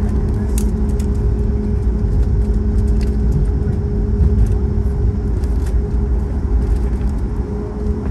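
Cabin noise of a Boeing 737 MAX 9 rolling along the taxiway after landing. A steady low rumble comes from the gear and the CFM LEAP-1B engines at low power, under a steady hum and scattered light clicks and rattles.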